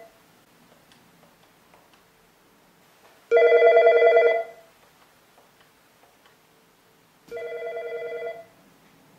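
Mitel MiVoice 5300-series IP desk phone ringing in two short bursts, about a second each, the first loud and the second much quieter: the ringer volume being stepped with the volume keys while the handset is on the hook, each burst sounding the ring at the new setting.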